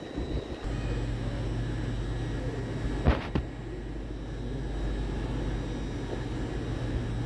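A train's engine running with a steady low drone that sets in about a second in, with a single sharp click about three seconds in.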